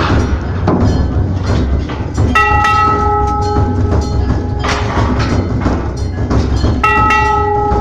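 A metal bell, rung by monkeys, is struck twice about four and a half seconds apart. Each strike rings on with several clear tones and fades over about two seconds. Between the strikes there are many short clattering knocks over a steady low rumble.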